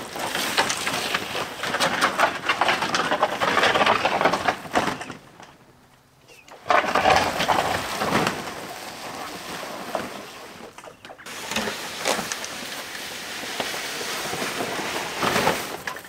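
A chicken tractor dragged by rope across pasture grass on the old board fixed under it as a sled: a rough scraping and rustling over the ground in long pulls, stopping for a moment about five seconds in.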